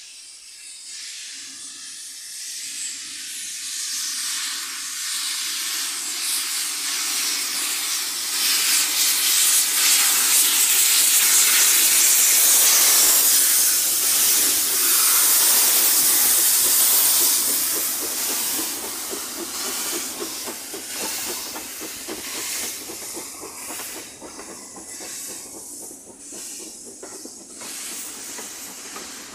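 Two steam locomotives, LMS Black 5 No. 5025 and a smaller engine ahead of it, working a train past: loud hissing steam that builds, peaks in the middle as the engines go by, then eases as the coaches roll past with a fast, steady rhythm from the rails.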